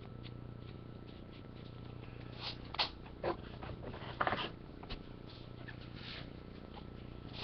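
A few brief rustling scrapes over a faint steady hum, the sound of trading cards and objects being handled on a table, strongest a couple of seconds in.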